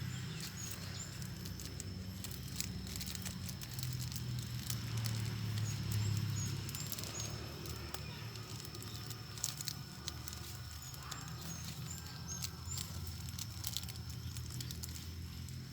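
Plastic bag crinkling and rustling in irregular clicks as it is tied around the cut stem of a galangal plant. Underneath run a low steady rumble, a steady high whine and, now and then, short high chirps.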